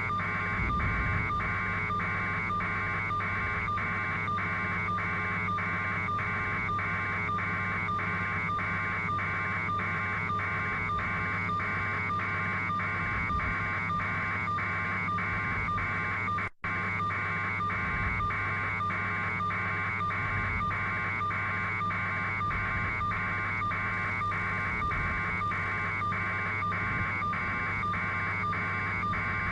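Helicopter cabin noise heard through the intercom: a steady, evenly pulsing engine and rotor drone. It cuts out for a split second about halfway through.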